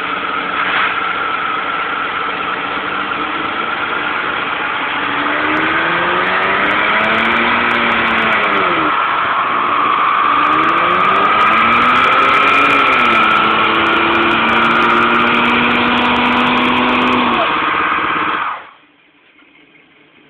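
Two cars doing burnouts side by side, a 2006 Ford Mustang and a 1977 Chevrolet Camaro: loud, steady screeching of spinning rear tyres over engines revving up and down several times. The sound cuts off suddenly near the end.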